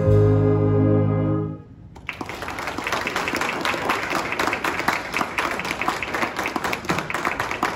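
A big band's brass and saxophones holding a last chord, cut off about a second and a half in, followed by an audience applauding.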